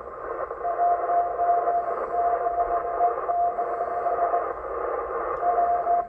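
Morse code (CW) signal from the M12 number station on 8118 kHz, received on a Yaesu FTdx10: a steady beat tone keyed on and off in long tones about a second each, over shortwave band hiss. The signal is affected by aurora flutter.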